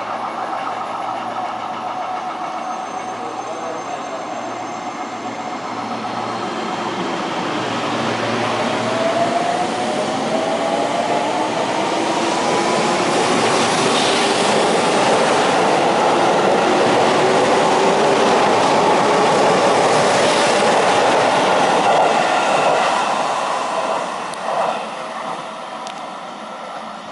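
Seibu 20000 series electric train pulling out of a station: after a steady hum at first, the traction motors' whine rises steadily in pitch as it accelerates, with wheels clacking over rail joints. It grows louder as the cars pass, then fades near the end.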